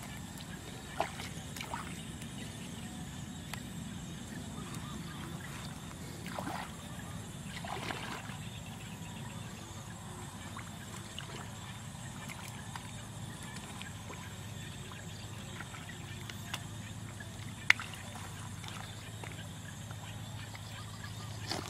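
Shallow muddy paddy water sloshing and splashing as hands grope through it and the mud, with a few sharp splashes or clicks, the loudest near the end, over a steady low hum.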